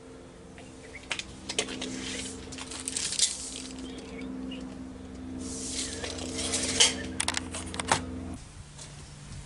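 Hands handling small doorbell mounting parts: light clicks and two stretches of rustling. Under them runs a steady hum that cuts off near the end.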